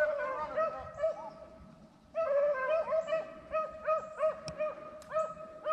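A pack of beagles baying in quick, repeated chop-mouth barks, several dogs overlapping, as they run a rabbit. The baying thins out about a second in and picks up again about two seconds in.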